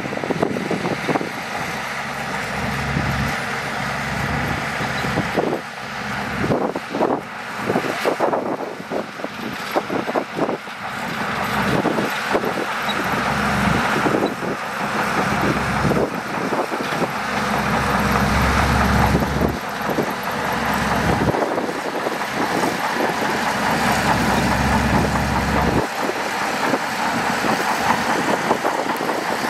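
Shantui DH17C2 crawler bulldozer working, its engine running steadily under load with scattered clanks. The low rumble grows heavier through the middle and falls away about four seconds before the end.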